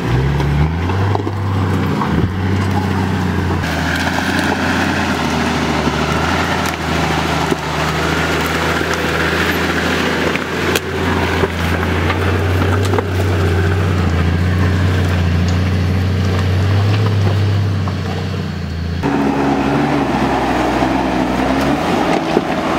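Toyota Land Cruiser engine running steadily at low revs under load as the four-wheel drive crawls up a steep rocky track, with occasional sharp knocks. About 19 seconds in the sound cuts to a different engine note: another Land Cruiser climbing the same track.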